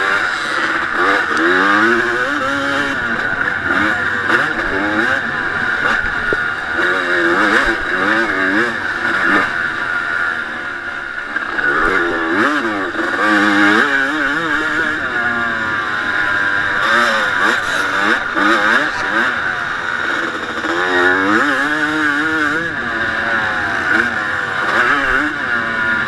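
1989 Honda CR250's single-cylinder two-stroke engine revving hard under racing load, its pitch climbing and dropping over and over, heard from a camera mounted on the bike.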